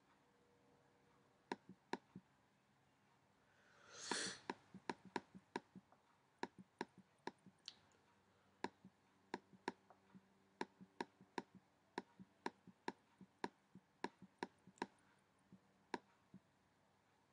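Computer mouse button clicked again and again, sharp single clicks in uneven runs of about two or three a second, with a short hiss about four seconds in.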